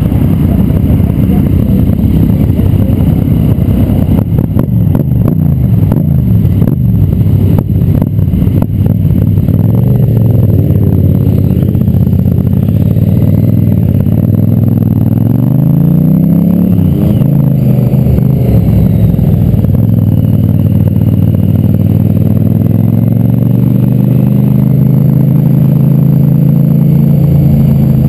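Motorcycle engines running loud, their pitch rising and falling as they accelerate and ease off. One climbs and drops back about 17 seconds in, as at a gear change, then climbs again.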